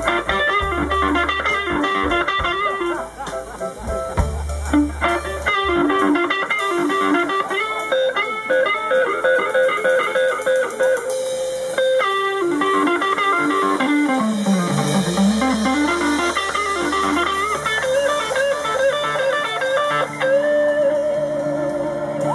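Live band playing a slow blues passage, with electric guitar lines over bass guitar.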